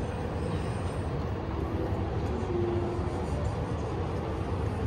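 Steady city street ambience: a low rumble of traffic under an even background noise.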